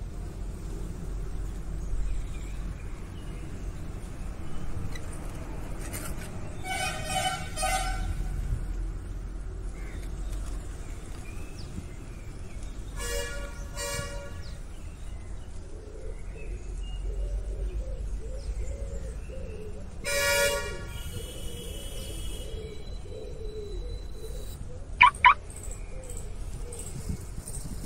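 Vehicle horns honking three times, several seconds apart, each about a second long, over a steady low outdoor rumble. Two sharp, loud high chirps come near the end.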